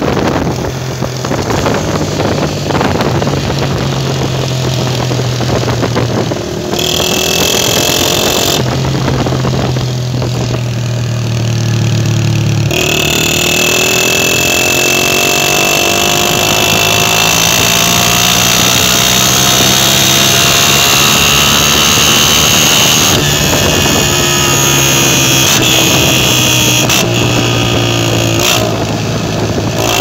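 Honda CG125's single-cylinder four-stroke engine and exhaust running while the motorcycle is ridden, heard close to the muffler. The engine note rises and falls, and its pitch climbs steadily as the bike accelerates, about halfway through and again near the end.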